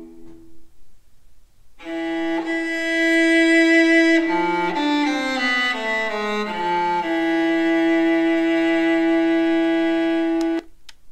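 Violin music playing back from an MP3 track on the Tivdio HR-11S radio. After a brief pause it starts about two seconds in: a long held note, a run of falling notes, then another long held note that cuts off suddenly near the end.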